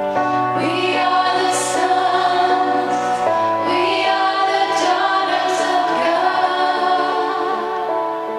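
Live worship band playing a slow song: voices singing held, wavering notes over sustained keyboard chords with acoustic guitar and bass.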